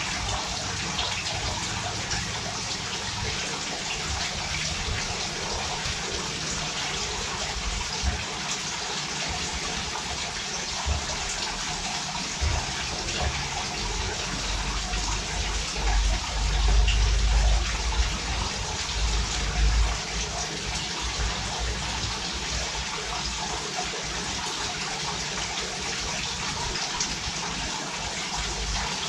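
Steady rushing, hissing noise, with louder low rumbles for a few seconds about halfway through.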